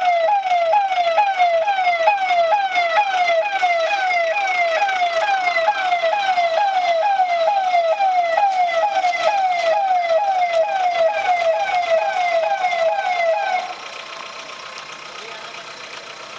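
Ambulance siren sounding a fast falling wail that repeats about twice a second. It cuts off suddenly near the end, leaving quieter steady background noise.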